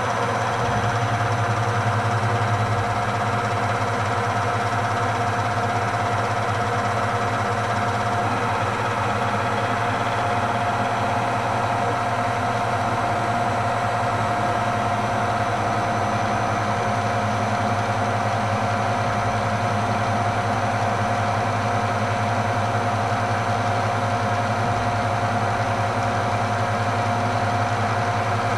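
Bridgeport milling machine, retrofitted for CNC, running steadily: a constant low hum from the VFD-driven spindle motor with a steady higher whine over it.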